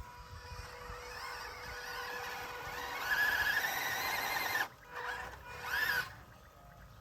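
Small electric motor of a 1/24-scale RC crawler whining under throttle, its pitch wavering. It is loudest from about three seconds in until it cuts off suddenly, then gives a brief rising whine near six seconds.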